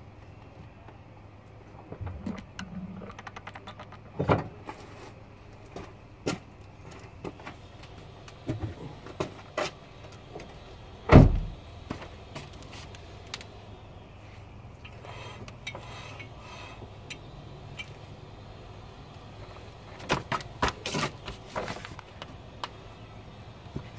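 Scattered knocks and clicks from handling work, over a faint steady low hum. The loudest is a single heavy thump about eleven seconds in, and there is a quick cluster of clicks near the end.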